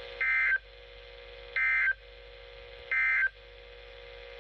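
Emergency Alert System end-of-message signal: three short bursts of buzzy SAME digital data tones, about 1.3 seconds apart, marking the end of the alert. A steady hum runs between the bursts.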